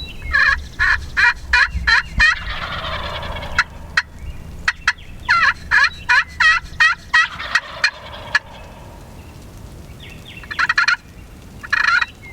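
Wild turkey gobblers gobbling loudly, several rattling gobbles in quick succession: one run about half a second in, a longer run from about five to eight seconds, and shorter calls near the end.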